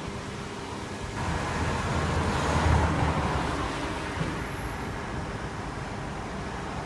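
Road traffic: a motor vehicle passes, its noise and low rumble swelling about a second in, loudest near three seconds, then fading back to a steady traffic hum.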